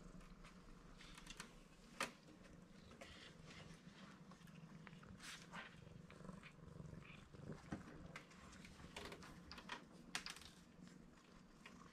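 Black-and-white tuxedo kitten purring faintly and steadily, with scattered light clicks, one sharper about two seconds in.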